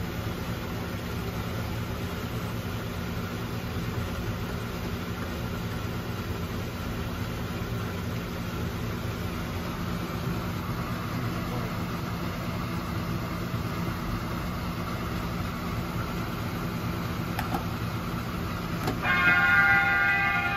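Miniature ride-on train running along its track, a steady low hum and rumble heard from inside its cab. About a second before the end, a louder sound of several steady higher tones starts up.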